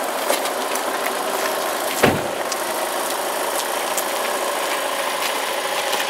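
Car engine and road noise running steadily, with light rattles and one loud thump about two seconds in.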